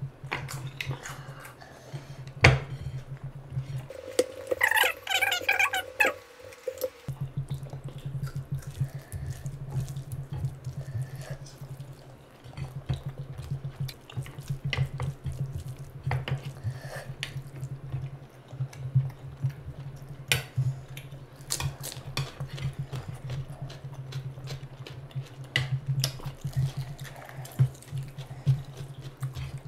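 Close-up wet eating sounds: hands squishing and mixing rice with curry, and mouths chewing with many sharp wet smacks and clicks, over a steady low hum. A short, higher-pitched sound stands out about four seconds in.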